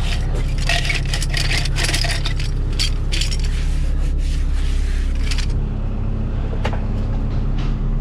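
An engine runs steadily under rapid scraping and clinking, as of tools, metal or gravel being worked, which stops about five and a half seconds in. After that the engine goes on alone with a couple of sharp clicks.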